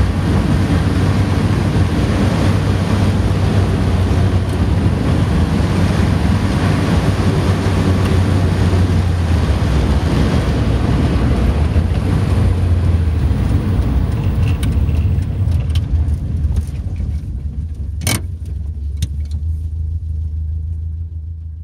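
Morris Minor with a Marina 1300 engine heard from inside the cabin at road speed: a steady low engine drone under tyre and wind noise. The sound eases and quietens over the last several seconds, and a single sharp click comes near the end.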